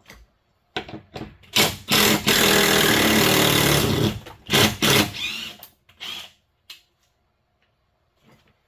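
Electric drill driver backing out a screw. The motor runs in a few short bursts, then for about two seconds straight, then in short bursts again.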